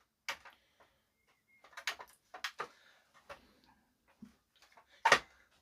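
Scattered sharp clicks and small knocks of hands handling an amplifier and its switches on a workbench, with a louder thump about five seconds in.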